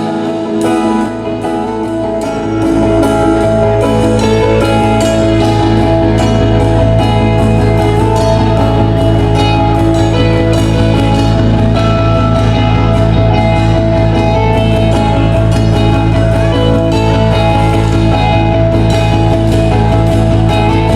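Loud amplified music through the stage PA: guitar and drums with a steady beat, getting louder about two and a half seconds in.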